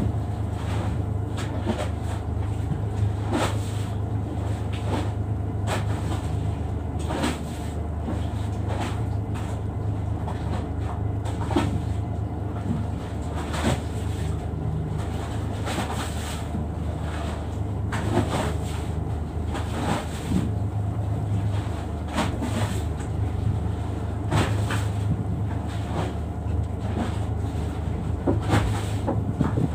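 Steady low hum of a fishing boat's engine running, with irregular sharp knocks and clicks every second or two.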